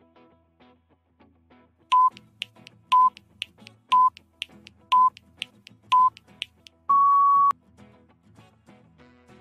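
Quiz countdown-timer sound effect: five short electronic beeps a second apart, with faint ticks between them, then one longer, slightly higher beep marking that time is up. Soft background music runs under it.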